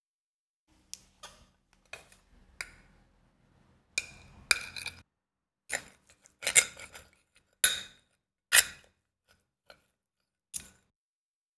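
A string of about a dozen sharp clicks at irregular intervals, a second or so apart, some of them louder with a short ringing tail.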